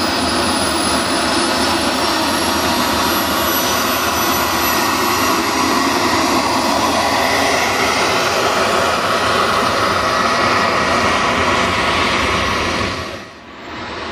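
The model gas-turbine engines of a large RC DC-10 running as it taxis on the runway: a steady jet roar with a high turbine whine. The sound dips briefly shortly before the end.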